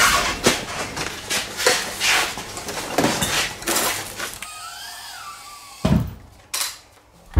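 Clicks, knocks and rubbing from hand tools and engine parts being handled, several a second. About four and a half seconds in comes a short squeak that rises and falls, then two thumps near the end.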